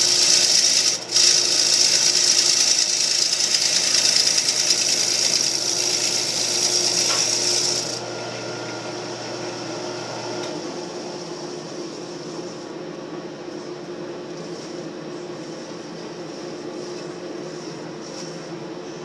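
Wood lathe spinning a mahogany bowl with a turning tool or abrasive rubbing on the wood, a loud steady hiss that stops abruptly about eight seconds in. A low hum ends a couple of seconds later, leaving a fainter steady background noise.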